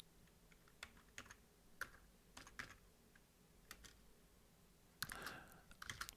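Faint, irregular keystrokes on a computer keyboard as a command is typed into a terminal, with a brief louder rustle about five seconds in and a quick run of keys near the end.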